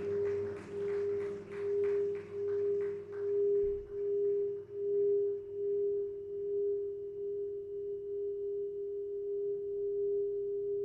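A single pure synthesizer tone held on one note, swelling and fading slowly for the first few seconds, then sustained evenly.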